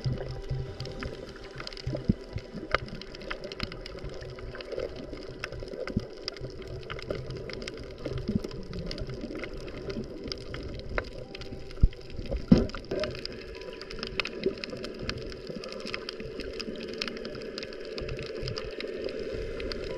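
Underwater sound picked up by a camera held below the surface: a muffled, steady watery hiss with many scattered small clicks and crackles, and two louder knocks a little past halfway.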